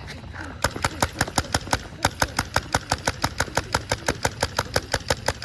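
Paintball gun firing rapidly: a steady string of sharp pops, about six shots a second, starting about half a second in and carrying on to the end.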